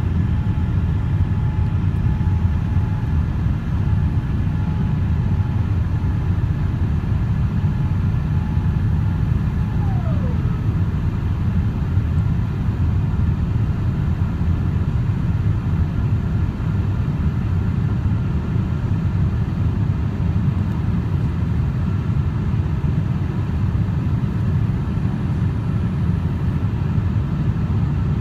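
Steady low cabin rumble of a Boeing 787-8 Dreamliner climbing after takeoff. A faint whine slides down in pitch about ten seconds in.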